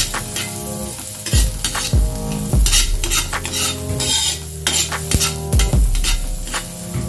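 A metal ladle scrapes and knocks against a metal wok in repeated, irregular strokes about every half second. Chopped onion, garlic and ginger sizzle lightly in a little oil as they are sautéed.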